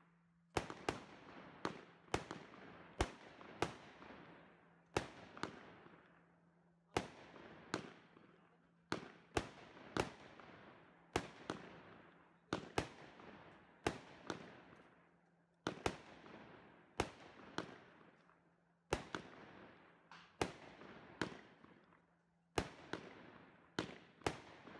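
A 19-shot, 20 mm tube consumer firework cake (BOST C2-B143 'Blue Jewel') firing. Sharp bangs come one after another every half second to a second, each trailing off, starting about half a second in.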